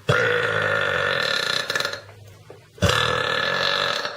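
A young woman's two long, loud belches, one after the other. Each lasts about one and a half to two seconds, starts suddenly and holds a steady pitch.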